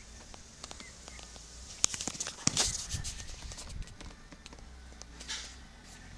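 Handling noise: scattered clicks, knocks and rustles, with a few sharper knocks between about two and three seconds in.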